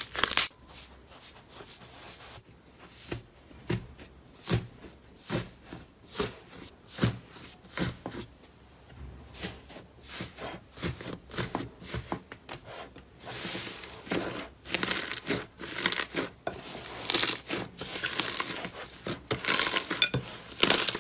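Slime being squeezed, pressed and stretched by hand, giving sticky pops, snaps and crackles. The pops come sparsely at first and turn into denser, louder crackling in the last third.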